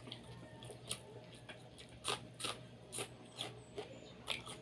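Someone eating boiled chicken: short, sharp mouth clicks and smacks, about one a second, over a faint steady hum.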